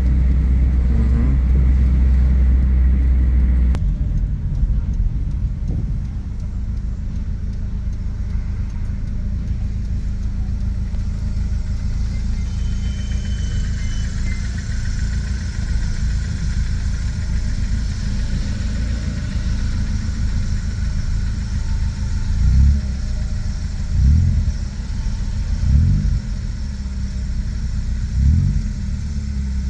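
Low, steady rumble of a car's engine and road noise, heard from inside the cabin. The rumble drops about four seconds in, and four short low thumps come near the end.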